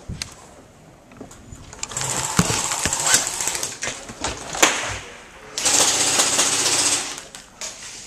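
Airsoft electric gun firing on full auto in two bursts, about two seconds in and again near six seconds in, each a rapid rattle lasting about a second, with a few sharp clicks between them.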